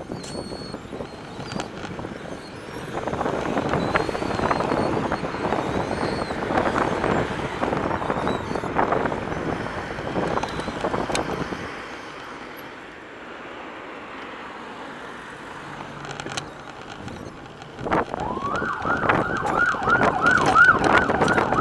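Riding noise from an Azonic B-52 full-suspension mountain bike: tyre noise and a dense clatter of rattles over rough ground, easing to a quieter rolling sound about halfway through. Near the end a siren starts up, rising in pitch and then warbling.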